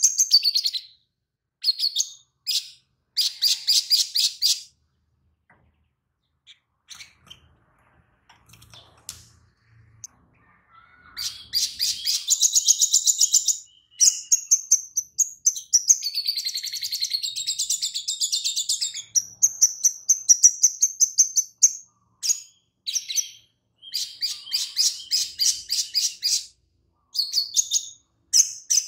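A caged male olive-backed sunbird (kolibri sogon) sings bursts of rapid, high trills and chatter, a song trained to include lovebird-like phrases. It pauses for several seconds with only a few soft chips, then sings almost without break.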